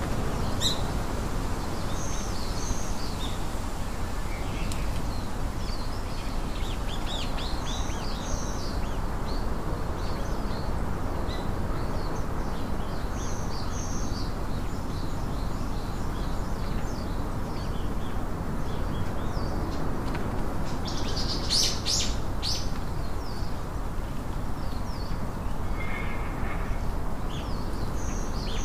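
Small birds chirping in short high notes, scattered throughout, over a steady hiss. A quick cluster of sharp clicks comes about two-thirds of the way through.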